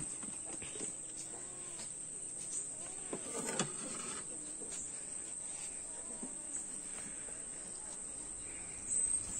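Steady high-pitched drone of insects, crickets or cicadas, from the surrounding forest. A few clicks and knocks, about three and a half seconds in, come from a knife and pieces of cooked pig's head being handled on a plate.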